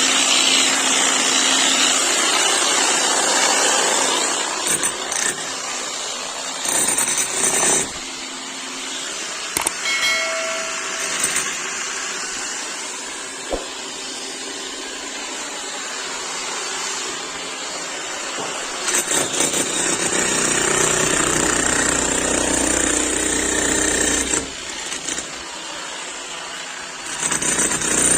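11 kg demolition hammer running and hammering in spells, loudest at the start, again about two-thirds of the way through and near the end, with quieter lulls between.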